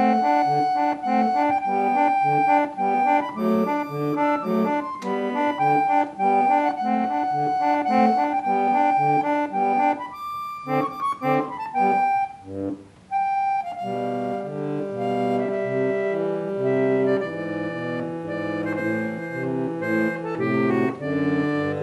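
Music on a reedy free-reed keyboard instrument: a lively, evenly pulsed melody over chords, thinning out around ten seconds in, then slower held chords lower in pitch from about fourteen seconds.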